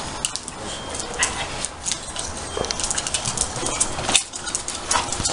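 A dog making small sounds as it plays tug with a toy, amid many short clicks and scuffs.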